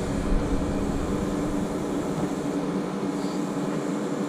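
Track-hoe (tracked excavator) engine running with a steady drone as the machine works.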